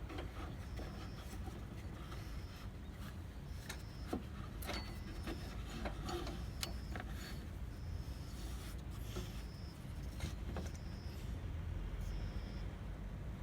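Hand tools working in a car's engine bay: scattered light metallic clicks and knocks over a steady low rumble, with a faint short high tone repeating about once a second.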